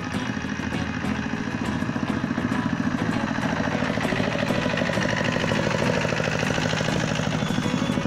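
Zubr 12 hp motor-tractor's single-cylinder diesel engine running with a steady pulsing beat as it pulls a loaded firewood trailer through mud, growing louder as it passes close by around the middle.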